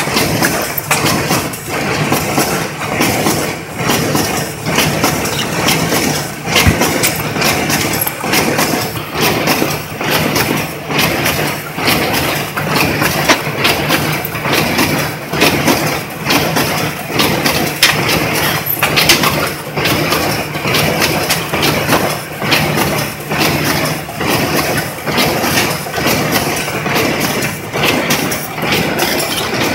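Corrugated cardboard partition assembler running: a steady motor hum under a continuous rhythmic mechanical clatter as the machine feeds and slots partition strips.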